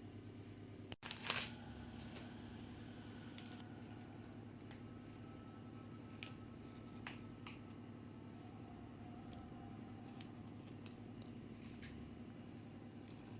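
Light handling noises: a short rustling clatter just after a brief dropout about a second in, then scattered faint clicks and taps over a steady low hum.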